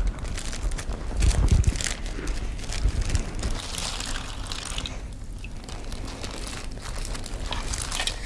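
Thin plastic bag crinkling and rustling as it is handled and water is poured into it from a glass, with a few soft knocks near the start.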